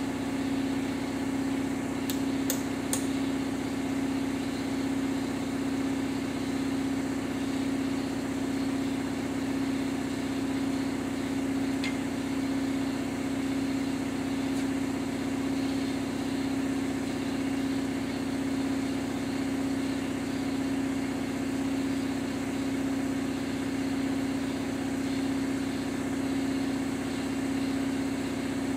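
Steady machine hum from a running motor, one even pitch with no change. Three sharp light clicks come about two seconds in, and a fainter one near twelve seconds.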